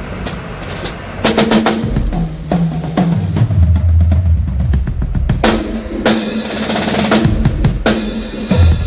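Drum kit played during a sound check. It opens with a few light hits, then from about a second in runs a fill down the toms, high to low, ending on a long low boom. After that, about halfway through, it breaks into a full beat with cymbals and snare.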